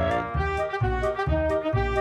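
Background music: a bright brass-led tune, trumpet-like, over a steady bouncing beat.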